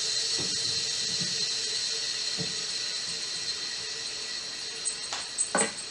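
Steady machine hiss with a high whine, slowly fading. A lower hum dies away about four seconds in, and a couple of light knocks come near the end.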